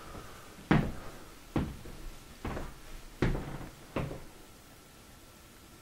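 Five sharp thumps, evenly spaced a little under a second apart, each with a short ringing tail, over a faint steady high hum.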